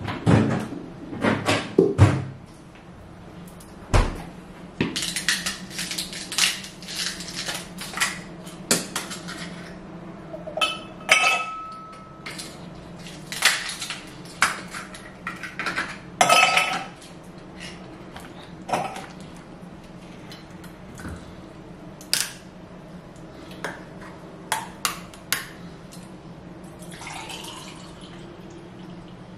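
Kitchenware being handled: a string of knocks and glassy clinks of glasses and containers on the countertop, busiest in the first half, some ringing briefly. Near the end, juice is poured from a plastic bottle into a glass, the sound rising in pitch as the glass fills.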